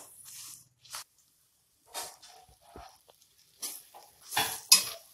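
A spatula scraping and stirring sliced ridge gourd in a kadhai: irregular scrapes and light clatters against the pan, the loudest near the end.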